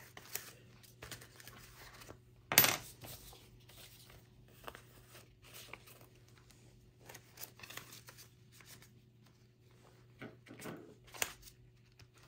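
Paper and plastic rustling and crinkling as banknotes and savings-game sheets are handled, in short scattered bursts. The sharpest, rip-like crinkle comes about two and a half seconds in, with another flurry near the end.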